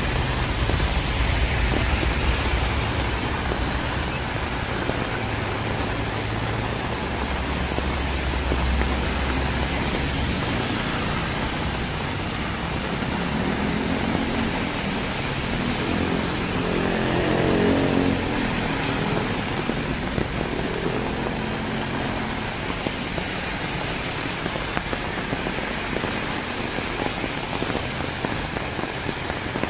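Heavy rain falling steadily on the road and surfaces, a constant hiss. Vehicles pass on the highway: a low engine rumble in the first third, then an engine's hum that swells and fades in the middle.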